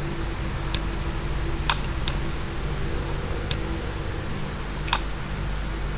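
About five sharp computer mouse clicks, spaced irregularly, over a steady low background hum.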